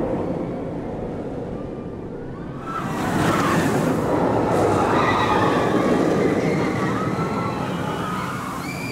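B&M inverted roller coaster train running along the track, a rushing roar that swells again about three seconds in. Riders' screams rise and fall over it.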